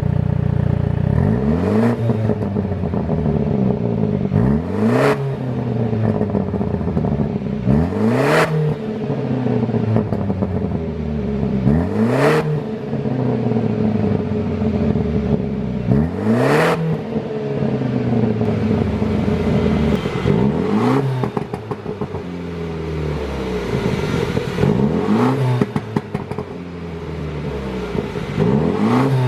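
BMW G30 530i's 2.0-litre turbocharged four-cylinder engine, tuned for exhaust pops, revved up and released about eight times. Each rev comes with sharp exhaust pops and crackles as the throttle is let off.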